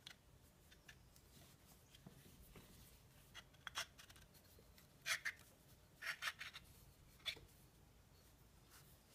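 Faint handling noise of a steel milling attachment being turned over in the hands: a few short clicks and scrapes of metal parts and fingers on steel, bunched in the middle, over near silence.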